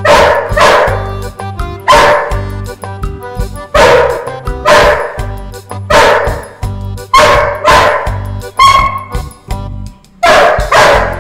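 A dog barking again and again, mostly two barks at a time every second or two, with a short pause near the end before another pair. Background music with a steady tune plays underneath.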